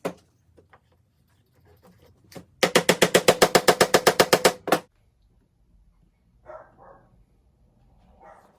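A rapid, even run of knocks, about ten a second, lasting about two seconds from a workshop tool, with a few single knocks before it and softer scuffing after.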